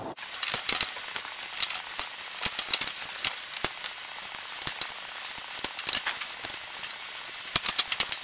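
Kitchen shears snipping through seared pork steak and metal tongs clicking against an aluminium sheet tray: clusters of sharp, irregular clicks over a steady hiss.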